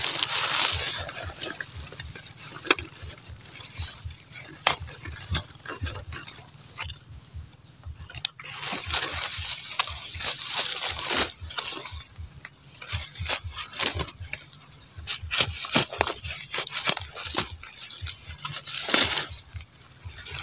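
Small metal trowel digging and scraping in dry, crumbly soil among dead leaves, in irregular short scrapes and clicks.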